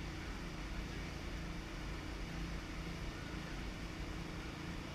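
Tour boat's engine running steadily, a constant low hum with wash and wind noise over it.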